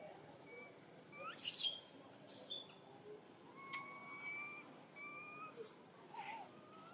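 Baby long-tailed macaque crying: a series of short, thin, pitched coo-like calls, some rising and falling, with a couple of shriller squeals in the first few seconds, the whimpering of an infant begging for milk.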